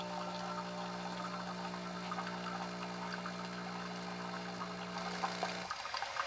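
Bunn My Cafe single-cup coffee maker running a brew cycle: a steady electrical hum over faint water sounds, the hum cutting off abruptly about five and a half seconds in.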